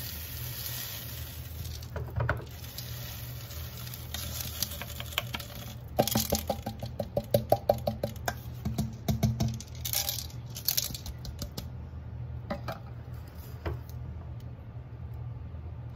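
Laundry scent-booster beads pouring from a bottle into a glass jar: a pattering of small pellets, with a dense run of quick clicks from about six to nine and a half seconds in, then scattered taps.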